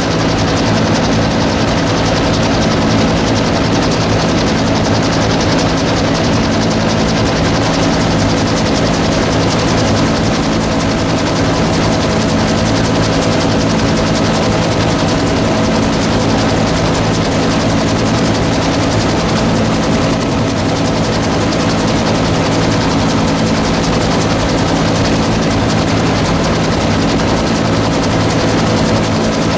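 Bell UH-1 Huey helicopter in flight, heard from inside its cabin: a loud, steady turbine engine and rotor noise with several constant tones, unchanging throughout.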